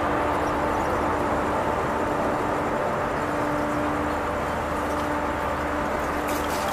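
Eastern and Oriental Express passenger coaches rolling past on the rails: a steady running noise with a faint steady hum through it, and a quick run of clicks near the end.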